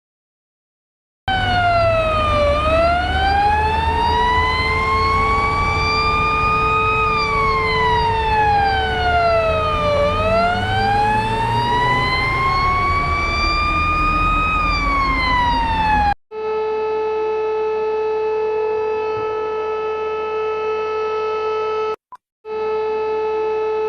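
Russian emergency alert siren wailing: its pitch rises and falls slowly twice over about fifteen seconds over a steady underlying tone, then it cuts off suddenly. An Armenian emergency alert follows, a steady chord of tones that drops out briefly near the end.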